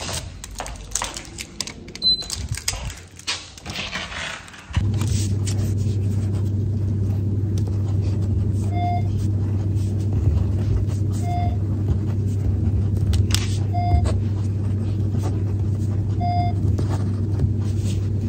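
Scattered light clicks and knocks, then a steady low electrical hum that begins abruptly about five seconds in, with a short electronic beep repeating about every two and a half seconds over it.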